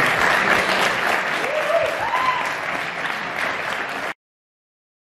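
Audience applauding and cheering, with one voice rising in a brief whoop above the clapping about two seconds in. The sound cuts off abruptly about four seconds in.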